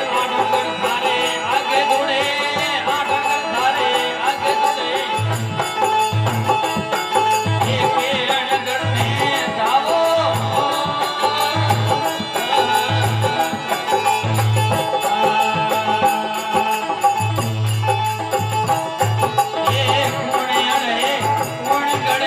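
Instrumental passage of folk bhajan music: an organ (keyboard) plays a wavering melody over a steady low drum beat and rhythmic jingling percussion.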